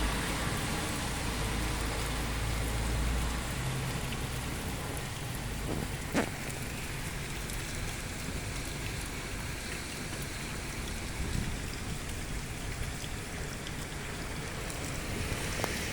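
Steady rain falling and pattering on surfaces, with a low rumble for the first three seconds or so and a single sharp tap about six seconds in.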